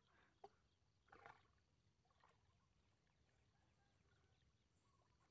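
Near silence, with a faint click about half a second in and another faint, brief sound about a second in.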